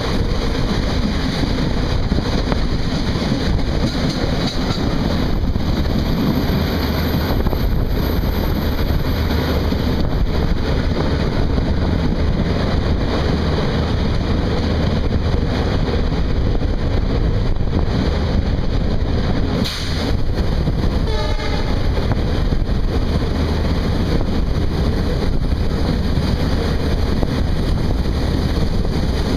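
Rajdhani Express hauled by an ALCO WDP3A diesel locomotive passing at speed without stopping: a steady, loud rumble of wheels on rails, with the locomotive's horn sounding.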